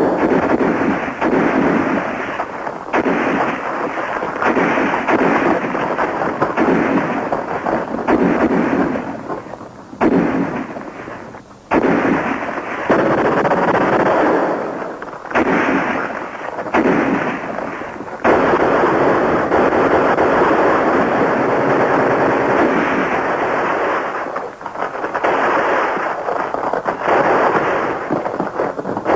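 Battle sound effects: sustained rifle and machine-gun fire with explosions, in dense stretches that break off briefly a few times.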